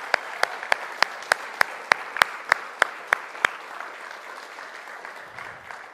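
A congregation applauding, with one person's loud, sharp claps close to the microphone at about three a second. The close claps stop about three and a half seconds in, and the crowd's applause dies away near the end.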